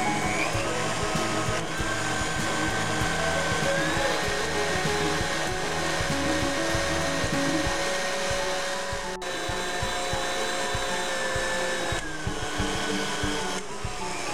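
KitchenAid Artisan stand mixer running at high speed, its wire whip beating egg whites and sugar in a steel bowl toward stiff meringue peaks. Background music plays over it.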